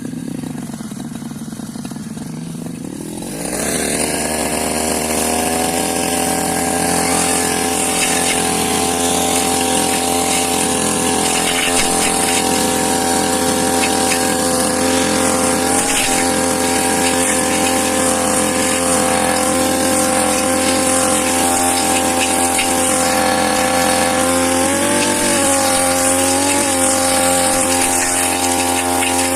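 Small engine of a grass-cutting machine running at low speed, then revving up about three and a half seconds in and holding a steady high-speed note, with brief dips in pitch near the end.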